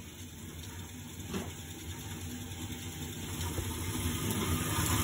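Swing-type band saw dowel bar cutting machine running: a steady motor hum with a hiss over it, growing louder, and a light knock about a second in.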